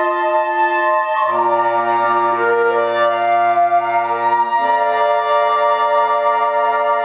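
Woodwind ensemble of flutes and clarinets playing slow, sustained chords, changing chord about a second in and again past the halfway point, with low notes entering at each change.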